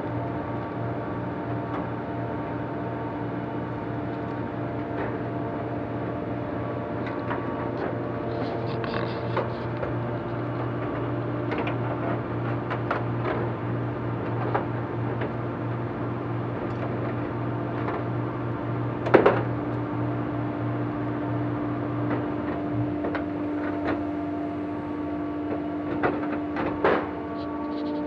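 Steady workshop hum with scattered light clicks and metallic taps as clecos are set with cleco pliers and aluminium wing parts are handled. The loudest tap comes about two-thirds of the way through, with two more close together near the end.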